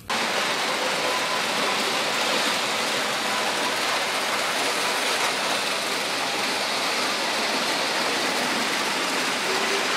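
Märklin H0 model train running on stamped-metal M-track: a steady rushing rolling noise of wheels on rails.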